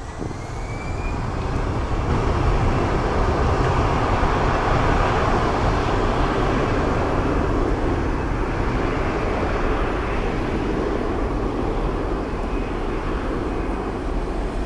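Airbus A321 jet engines spooling up: a faint rising whine and a steep swell in level over the first two seconds, then a loud steady jet roar as the airliner rolls down the runway on its takeoff.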